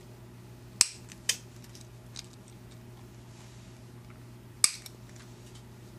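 A few sharp metallic clicks of pliers working a small brass plug terminal, the loudest about a second in and again later on, with fainter ticks between.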